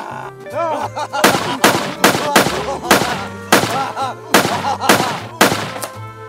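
A string of about nine gunshots fired at an uneven pace, with manic laughter in short bursts between them.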